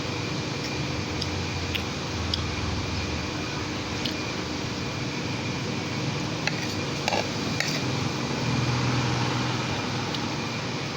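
Steady background noise with a faint high whine and a low hum, with a few light clicks and taps scattered through it.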